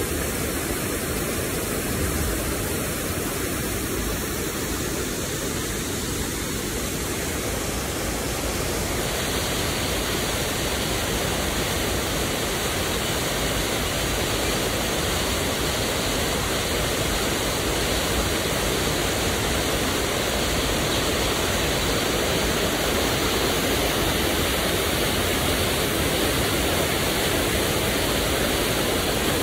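Water rushing out through an open dam gate during sediment flushing, a steady, dense rush of noise that gets a little louder from about nine seconds in.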